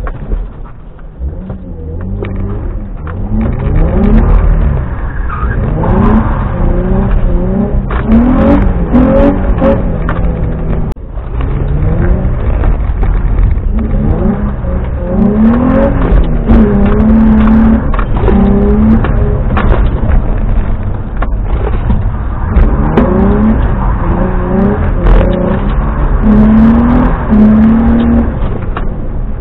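Car engine, heard from inside the cabin, revving hard in several long bursts: the pitch climbs, holds high for a second or so, then drops, over and over, as the car is drifted on a wet road.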